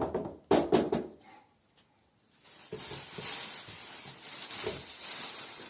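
A brief stretch of speech, a pause, then a steady, even hiss that begins about two and a half seconds in and continues.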